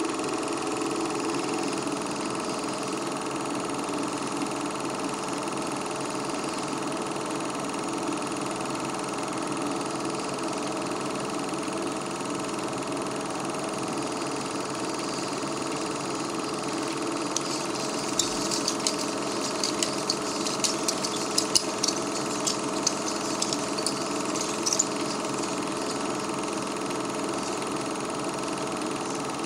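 Steady whirring hum of a film projector running, with a run of sharp crackling clicks about two-thirds of the way through.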